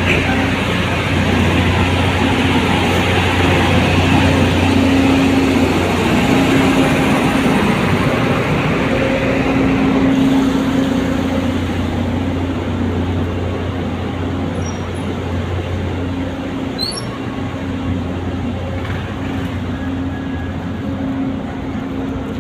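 Steady drone of fairground ride machinery running, with a constant low hum under a broad mechanical rush. It is loudest for about the first ten seconds, then eases off.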